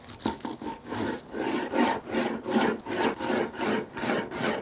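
Long slicing knife sawing back and forth through a rack of smoked baby back ribs, rasping through the crusted bark and meat and scraping the wooden cutting board, about three strokes a second.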